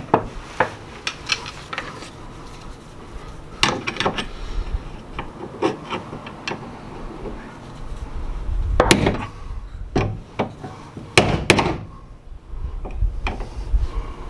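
Irregular metallic knocks and clunks of a hand wrench working the flange nut on a Honda CR-V rear differential, with the loudest knocks in the second half.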